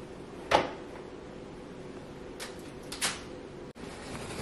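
A single knock, then a few brief crinkles of aluminium foil being handled over a disposable aluminium baking pan, over a faint steady hum.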